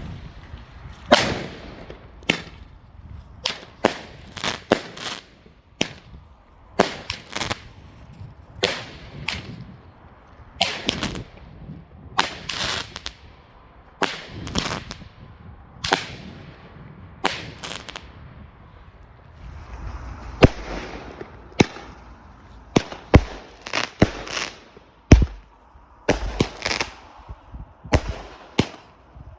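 Two roman candles (bomb tubes) firing together, a long run of sharp bangs from the shots and their bursts at an uneven pace of roughly one a second. Some come in quick pairs, and some ring on briefly after the crack.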